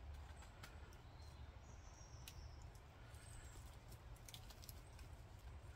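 Faint, irregular crackles and snaps from a freshly lit campfire of split kindling and feather sticks, with dry twigs being handled and laid onto it.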